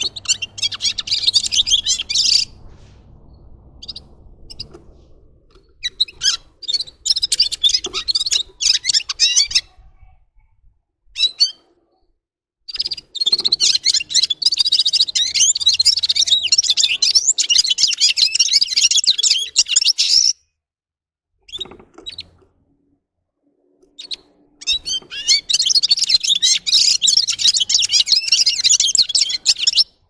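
Red-fronted serin singing: fast, high twittering song in four spells of a few seconds each, the longest about seven seconds, with short pauses between.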